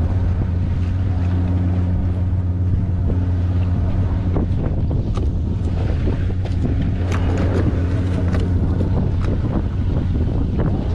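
A fishing boat's motor running with a steady low hum, with wind on the microphone and a few light clicks in the middle.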